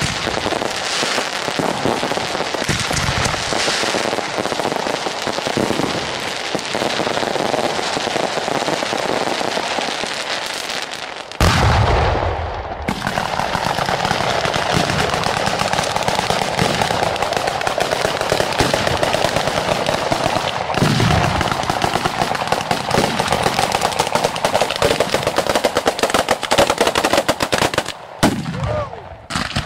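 A 'bolognese'-style ground fireworks battery going off: a dense, continuous rattle of rapid firecracker bangs like machine-gun fire, with a heavier boom about eleven seconds in. Near the end the barrage thins out into a few separate bangs.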